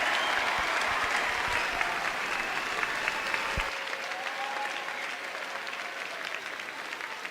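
Audience applauding, fading gradually as it goes on.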